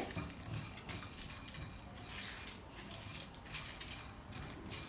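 Whole coriander and cumin seeds and dried red chillies being stirred with a silicone spatula in a hot, dry nonstick frying pan as they are dry-roasted. The sound is a faint, irregular scraping and rattling of the seeds across the pan.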